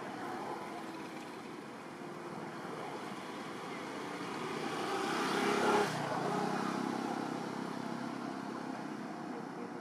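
A motor vehicle passing: steady outdoor noise that swells to its loudest about six seconds in, drops off sharply, then fades.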